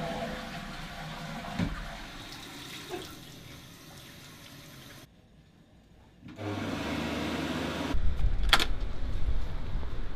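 A toilet flush and the cistern refilling, the rushing fading away over the first few seconds. After a short gap, a wall-mounted electric hand dryer runs with a steady whir and a low hum. Near the end there is louder rushing noise and a sharp click.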